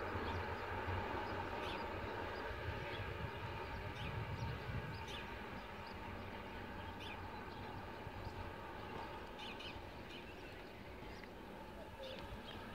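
A pair of class 742 diesel locomotives running away into the distance, their low engine rumble fading steadily, with birds chirping.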